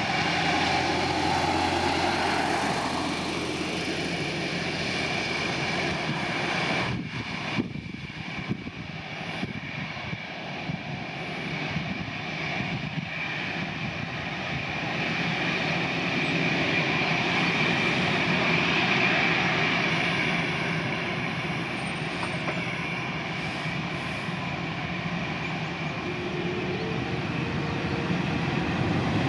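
Airbus A330neo's Rolls-Royce Trent 7000 jet engines running at taxi power: a steady whine with a high tone over a noisy hum, dipping in level a quarter of the way through and swelling again past the middle.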